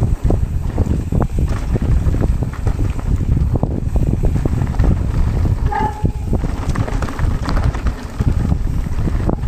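Mountain bike riding fast down a dirt trail: heavy wind buffeting on the microphone over tyre rumble, with constant rattles and knocks from the bike over bumps. A brief high-pitched tone sounds a little past halfway.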